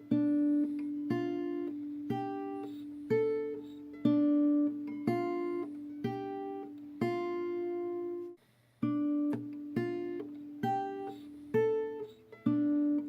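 Background music: acoustic guitar picking notes at a steady, unhurried pace, with a brief break a little past the middle.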